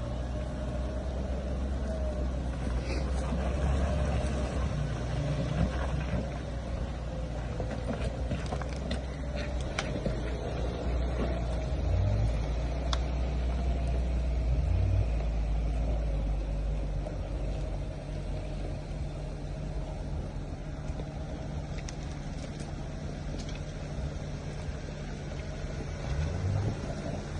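Suzuki Jimny engine running steadily while driving off-road, with the revs rising briefly a few times. Scattered sharp knocks and clicks sound over the top.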